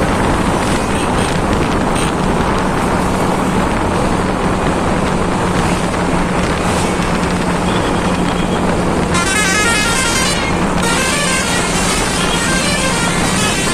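A bus's telolet basuri horn plays a quick warbling melody about nine seconds in, loud for a second and a half and then fainter. Heavy wind and road noise on the microphone and a steady low drone run throughout.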